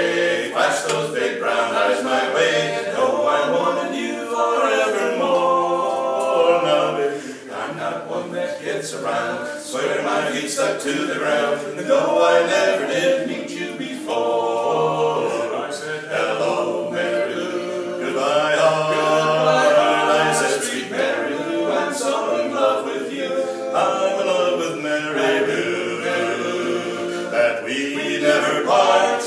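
A mixed barbershop quartet, a woman and three men, singing a cappella in four-part harmony.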